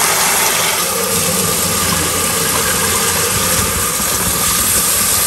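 Water running steadily from a kitchen tap, splashing into a pot of cooked noodles over a plastic colander.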